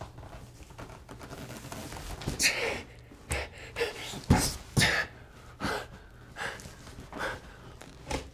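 A man panting heavily with effort while lifting and handling a very heavy box: a run of short, loud breaths starting about two seconds in, strongest around the middle.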